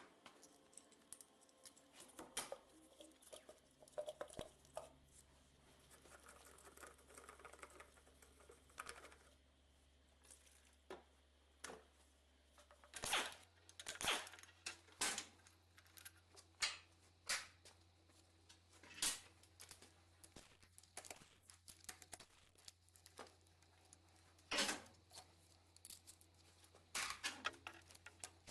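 Scattered clicks, knocks and light metallic clatter of tools and engine parts being handled during a diesel engine teardown, with a steady low hum underneath.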